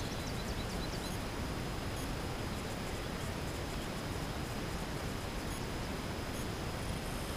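Steady, even outdoor background noise like a hiss, with a faint steady high whine and a few faint ticks; no distinct event stands out.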